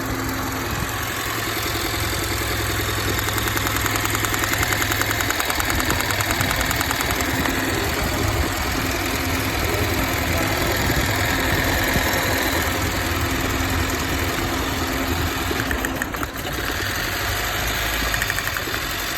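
Honda car engine idling steadily, the subject being an ignition-coil misfire.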